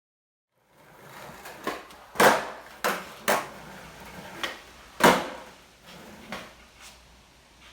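Skateboard on a hard floor: after about a second of silence, wheels rolling with several sharp wooden clacks and slaps of the board being popped and landing.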